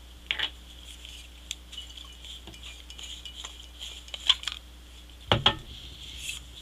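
Small clicks and light knocks of objects being handled on a glass-topped table, with a couple of louder knocks about five and a half seconds in.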